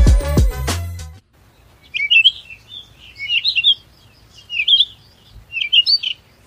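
Music fades out about a second in, then a bird chirps in four short bursts of quick, high notes.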